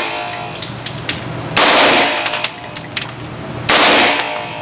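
Short bursts of fully automatic machine-gun fire in an indoor range, echoing off the walls. There are two bursts about two seconds apart, each well under half a second long, with lighter clicks and clinks between them.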